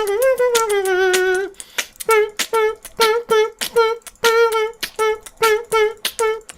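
A cartoon character's voice vocalising: a long note that wavers and falls, then a quick run of short, even pitched syllables, about three a second.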